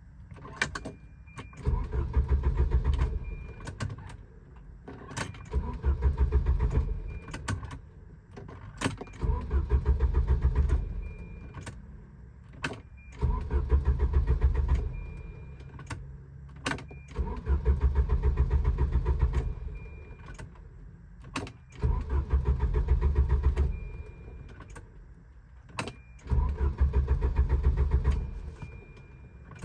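Volvo 740's starter cranking the engine in about seven short attempts, each about two seconds of steady pulsing churn ending abruptly, with clicks between attempts. The engine never catches: a crank/no-start condition.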